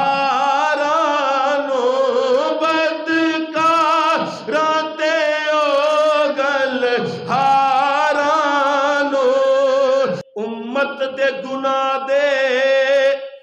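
A man's solo voice chanting a Punjabi devotional verse, drawing out long, wavering, melismatic notes into a microphone, with a short breath break about ten seconds in.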